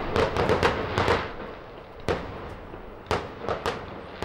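Fireworks bursting: a dense run of crackling bangs in the first second or so, then single scattered bangs about every half second to a second.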